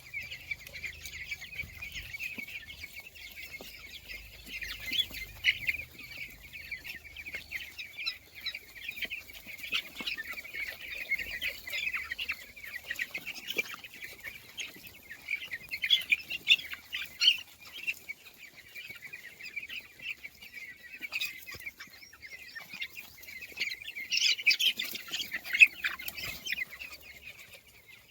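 Young chicks peeping continuously in dense, overlapping high chirps, with louder flurries about 16 and 25 seconds in.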